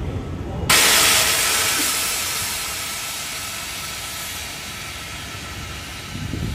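A Comeng V set electric train's pneumatic system venting compressed air: a sudden loud hiss about a second in that fades slowly over several seconds, over the train's low rumble.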